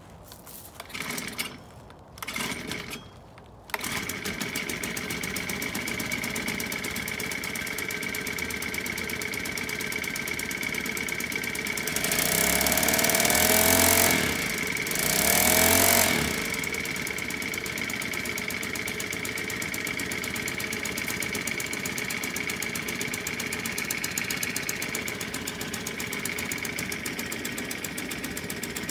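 Homemade outboard's 31cc four-stroke Honda GX31-clone engine pull-started: two pulls on the starter cord, and it catches about four seconds in and settles into a steady idle. About halfway through it is revved up twice on the throttle, then drops back to idle.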